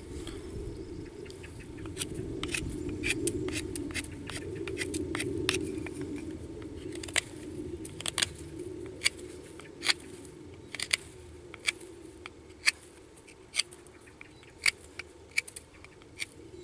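Folding knife shaving a wooden bow-drill spindle: short, sharp scraping clicks of the blade biting into the wood, one stroke after another, settling to about one a second in the second half.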